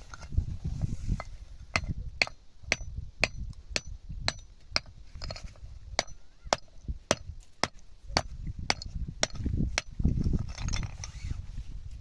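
A run of sharp, evenly spaced knocks, about two a second, each with a faint high ring, stopping about ten seconds in, over a low uneven rumble.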